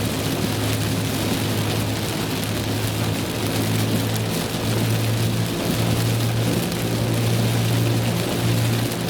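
Rain hitting a moving car, heard from inside the cabin, over a steady low drone of the car on the road.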